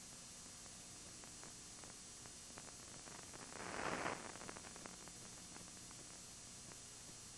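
Faint steady hiss and hum of an old video recording, with scattered faint clicks and a short swell of noise about three and a half seconds in.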